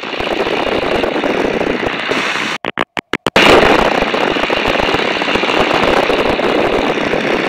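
Steady rushing noise of a de Havilland Tiger Moth in flight, heard from the open cockpit: the slipstream over the microphone mixed with the Gipsy Major four-cylinder inverted inline engine's drone. A little under three seconds in, the sound cuts out briefly several times in quick succession, then returns a little louder.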